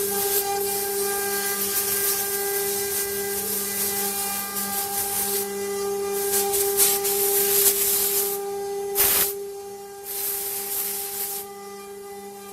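CNC router spindle running with a steady high whine while the bit cuts wood with a hissing noise that comes and goes. The cutting noise stops near the end, leaving only the spindle whine.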